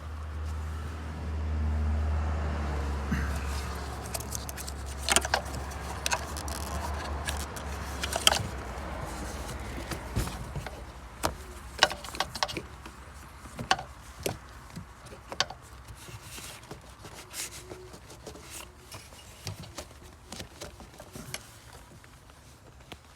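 Sharp metallic clicks and clinks of hand tools working on engine parts, scattered irregularly, over a low steady hum that fades out about a third of the way in.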